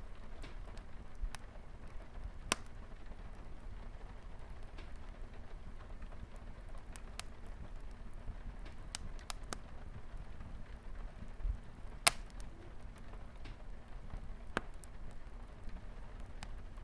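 Wood fire crackling in a fireplace, with scattered sharp pops and snaps, the loudest about twelve seconds in, over a steady patter of light rain on a window.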